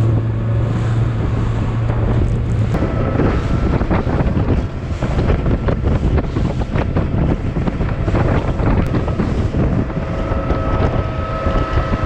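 Outboard-powered boat running at speed through rough, choppy water: the motor's steady drone, the hull knocking and splashing through the waves, and heavy wind on the microphone. A low hum is strongest in the first few seconds, and a higher whine from the motor comes in near the end.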